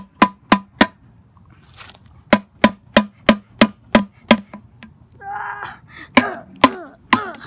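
A stick banging on a painted metal stair railing: sharp clanks, each with a short ring, about three a second in three runs (three, then seven, then three), with brief pauses between them.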